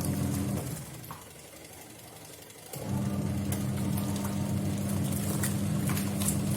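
Washing machine motor running with a steady hum during a wash cycle. It winds down about a second in, pauses for nearly two seconds, then starts again abruptly and runs on, as the drum does when it stops and changes direction.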